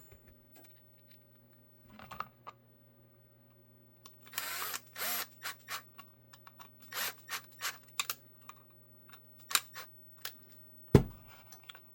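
Small screws and holster hardware being handled and fitted on a workbench: scattered light clicks and short rustles, with one sharp knock near the end, over a steady low hum.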